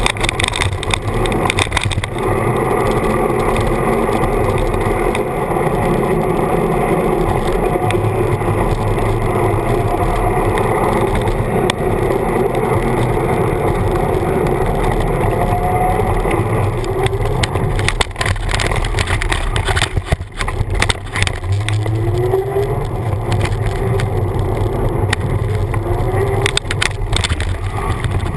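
Bicycle front tyre rolling over city pavement, heard from a camera on the front fork: steady wind and road rumble with frequent small knocks and rattles from bumps. A few short rising squeaks come in the last third.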